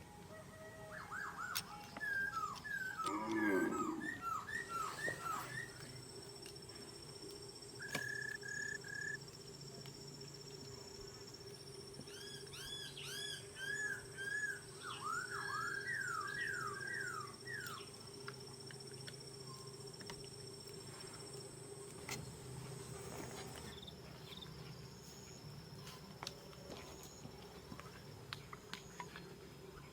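Birds chirping in several quick runs of short, repeated calls over the first half, over a steady high-pitched insect whine.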